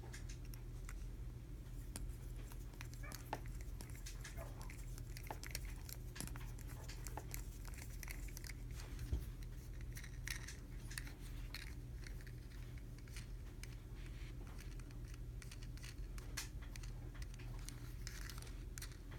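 Scattered faint clicks, ticks and light scrapes of small die-cast toy-car parts being handled during reassembly, over a steady low hum.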